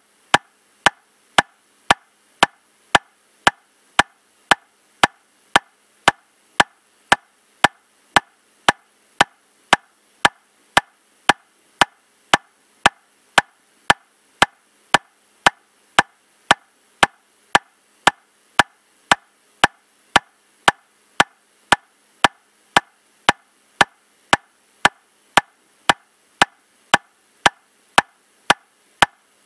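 Metronome clicking steadily at 115 beats per minute, just under two evenly spaced clicks a second, all of the same strength.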